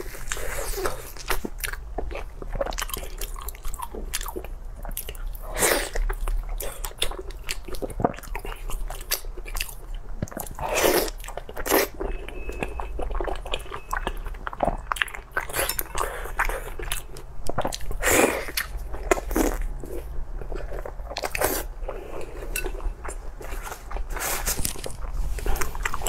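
Close-miked chewing and biting by a person eating sauce-glazed meat. Many sharp, wet mouth clicks come at irregular intervals, with a few louder bites standing out.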